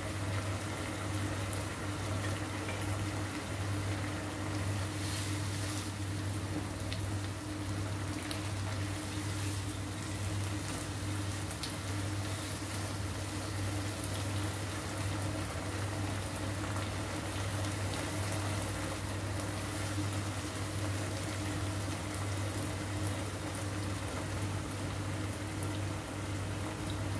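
Pork and tofu in soybean-paste sauce simmering and bubbling in a nonstick wok, steady throughout, over a constant low hum.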